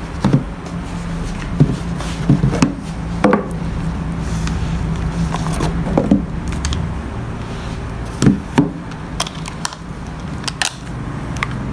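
Leatherette watch presentation boxes handled and set down on a wooden table: about a dozen scattered knocks and clicks, some from the box's metal clasp. A steady low hum runs underneath.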